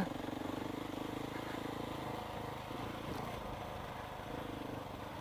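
Motorcycle engine running steadily under way, with an even firing pulse and little change in pitch.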